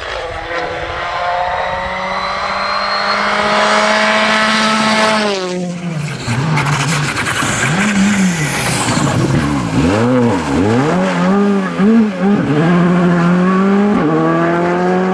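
Rally cars passing at competition speed. First a Ford Fiesta rally car's engine holds high, steady revs and then falls away about five seconds in. Then a Škoda Fabia R5's turbocharged engine revs up and down repeatedly as it brakes and changes down for a bend, and accelerates hard away with an upshift near the end.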